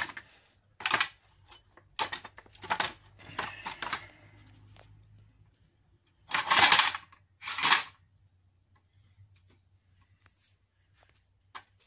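Knocks and clattering of a metal combat robot's chassis being handled, propped against a lifter arm and set down on concrete. The loudest is a rough scraping clatter about six and a half seconds in, with a shorter one about a second later.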